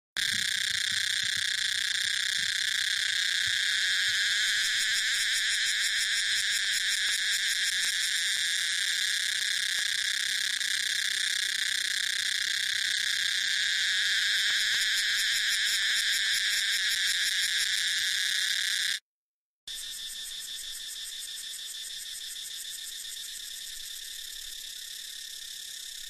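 Cicadas singing: a loud, continuous high buzzing song that stops about nineteen seconds in. After a moment's silence, a quieter buzz from another cicada species takes over.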